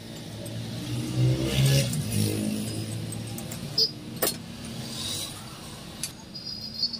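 A steady low mechanical hum that swells louder between about one and two seconds in, with a few sharp metal clinks as a steel rod is worked against the top of a car's front strut assembly.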